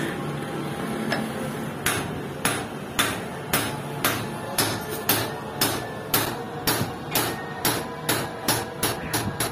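Hand hammer striking a round steel disc seated in a motorcycle wheel's brake drum hub. The sharp metal-on-metal blows begin about two seconds in, come about two a second and get quicker near the end.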